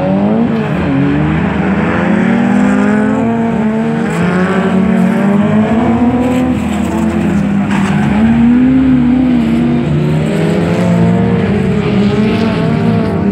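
Several everyman-class (jokamiehenluokka) race car engines revving hard together, their pitch repeatedly climbing and dropping as the cars race past.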